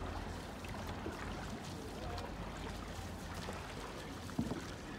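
Dragon boat paddles dipping and splashing in the water as the crew strokes past, over a low steady rumble. A single sharp knock about four and a half seconds in.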